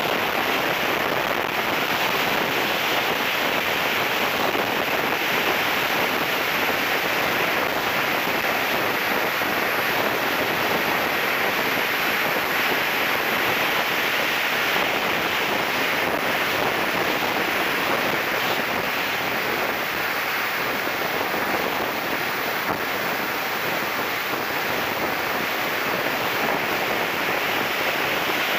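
Steady rush of wind over a wing-mounted camera on a BVM F9F-6 Cougar model jet in flight, blended with the jet's turbine. A faint high whine steps slightly lower about a third of the way in and again past the middle.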